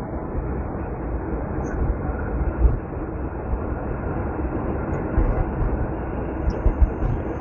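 Truck driving: a steady low rumble of engine and road noise, with a louder bump about two and a half seconds in.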